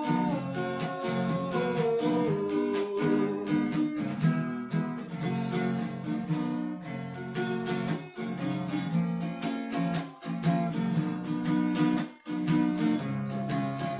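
Acoustic guitar strummed in a steady rhythm as an instrumental passage. A held sung note trails off over the first few seconds.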